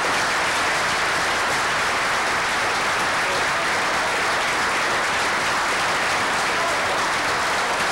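Audience applauding: dense, steady clapping from a large crowd, sustained at a constant level.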